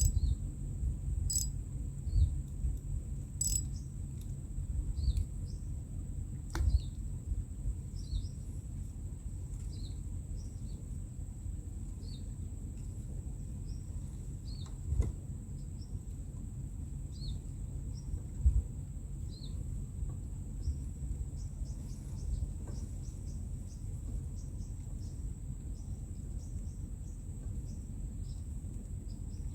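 Outdoor insect chorus: a steady high drone with short chirps about once a second. Under it runs a steady low rumble and a few sharp clicks.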